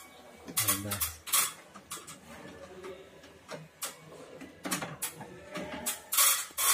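Clattering and rustling of electrical cables being pushed and pulled among plastic circuit breakers inside a metal distribution panel, in several short bursts.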